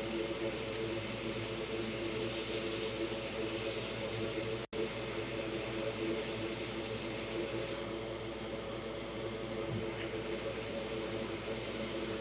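Bench fume extractor fan running with a steady whir and low hum. The sound cuts out completely for an instant a little under five seconds in.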